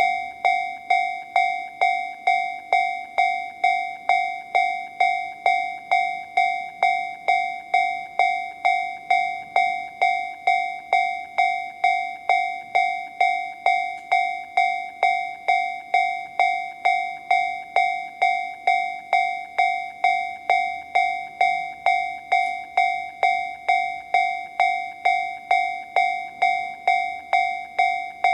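Japanese railway level-crossing warning sound, Tobu 'Sound C', from a Toho Denki Kogyo TA3-VR crossing alarm generator. It is an electronic bell-like ding repeating evenly, about one and a half times a second, each ding fading quickly.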